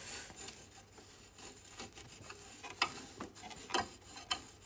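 Knit binding fabric being handled and pulled out of a stainless-steel binder attachment: soft rustling and rubbing of cloth on metal, with a few small clicks in the second half.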